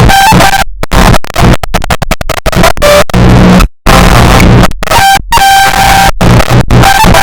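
Heavily distorted, clipped "earrape" music, an Arabic-style melody blown out to full volume, with abrupt stutter cuts and brief dropouts.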